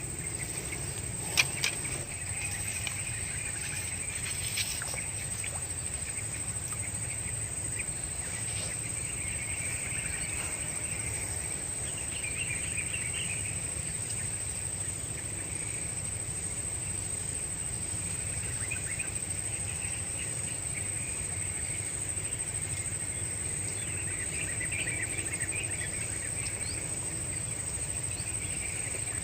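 Outdoor insect chorus: a steady high-pitched drone, with patches of chirping that come and go every few seconds. There are a couple of light clicks near the start.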